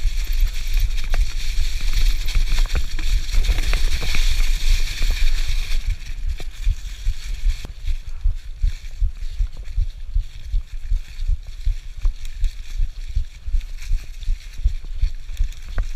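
Mountain bike rolling along a dirt trail covered in dry fallen leaves: tyres crunching and hissing through the leaves, with scattered knocks and rattles from the bike. Heavy wind buffeting on the handlebar-mounted action camera's microphone runs underneath. The leaf hiss is strongest for the first six seconds, then eases.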